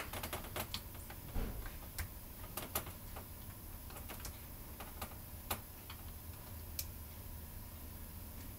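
Scattered small clicks and taps as the plastic float bowl of an Evinrude 15 hp outboard carburetor is worked off and the carburetor is handled. The clicks are irregular, more frequent in the first few seconds and then sparse, over a low steady hum.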